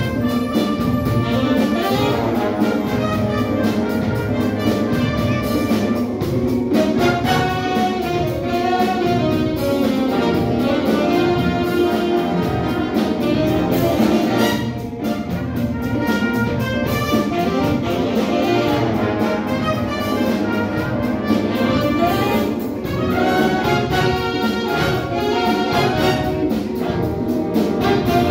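A big band playing jazz live: saxophones, trumpets and trombones over electric bass guitar and a drum kit keeping a steady beat.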